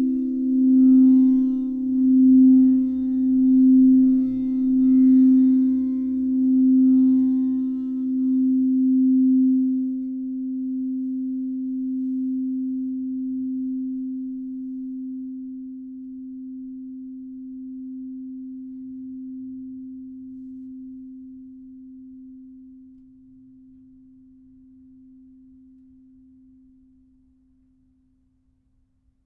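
Quartz crystal singing bowls ringing together in a sound bath: a pure, steady hum that swells and fades about every second and a half while they are played. After about ten seconds the playing stops and the tone dies away slowly, fading out near the end.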